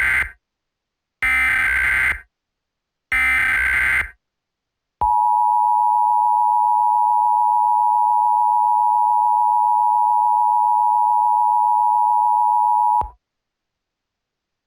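Emergency Alert System header: the end of a burst of screeching SAME digital data and two more identical bursts, about two seconds apart. About five seconds in, the EAS two-tone attention signal starts and holds steady for about eight seconds, then cuts off abruptly.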